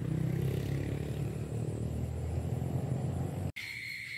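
A steady low engine rumble that cuts off abruptly about three and a half seconds in, replaced by a steady high trill of crickets.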